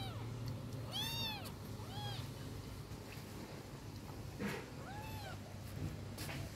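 Cat mewing: four short, high-pitched mews that rise and fall in pitch, the loudest about a second in and the last about five seconds in.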